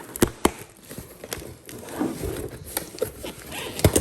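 Cardboard box being opened and handled by hand: a handful of irregular sharp taps and knocks over a rustling of cardboard and packaging.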